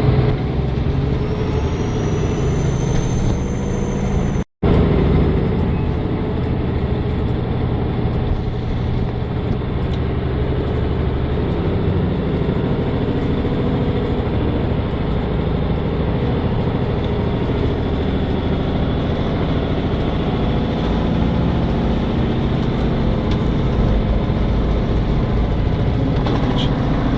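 Semi truck's diesel engine running and road noise heard from inside the cab while driving, a steady loud low rumble. The sound cuts out for an instant about four and a half seconds in.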